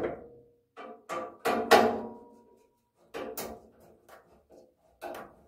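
Sharp metallic knocks and clinks of a hand screwdriver and mounting screws against the steel server rack and battery case: about half a dozen irregular strokes, one leaving a brief ring.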